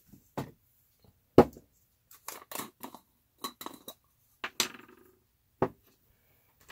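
Knocks and clinks of small tools and containers being picked up and set down on a wooden workbench: a string of separate sharp taps, the loudest about a second and a half in.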